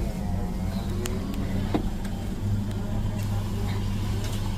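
Car engine idling with a steady low hum, with faint muffled voices and a couple of light clicks.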